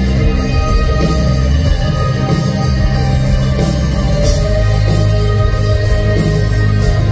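Live rock band music with electric guitar, over long held low notes that shift about four seconds in.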